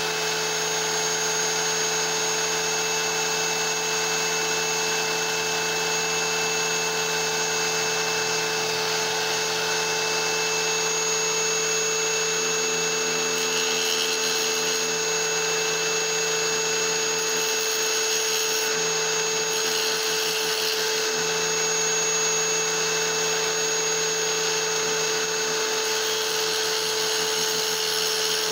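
Small wet tile saw's motor and blade running steadily, with a constant hum and whine.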